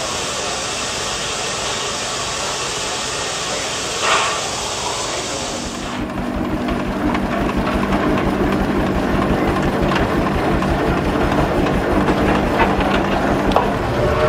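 Steam hissing steadily. About six seconds in, it changes abruptly to a steady low machine hum with scattered clicks.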